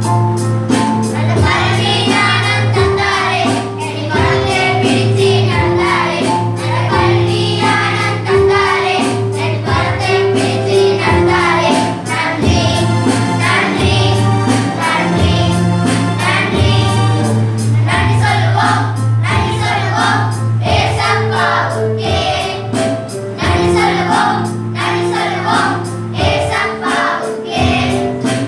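A choir singing a church song over a steady beat, with held bass notes underneath.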